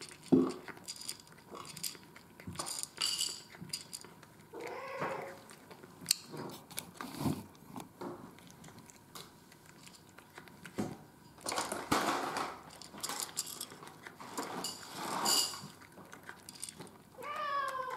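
A cat eating from a bowl, with small clicking crunches throughout, and a cat meowing twice: once about five seconds in and once near the end. Louder rustling comes about twelve seconds in and again about fifteen.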